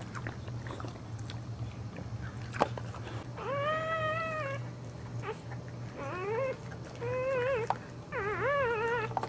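Newborn boxer puppy crying: four high squealing cries, the first a longer, level one and the next three shorter and wavering, as the mother licks it clean right after birth.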